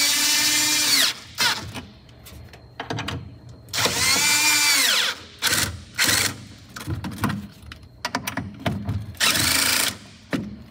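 Cordless drill driving the bolts of a battery hold-down bracket: three runs of motor whine, each rising and falling in pitch, the last one shorter, with small knocks and clicks of the bit and bracket in between.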